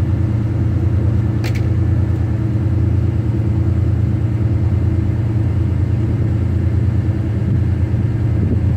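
Boat engine running steadily at cruising speed, a low, even drone, with a brief click about one and a half seconds in.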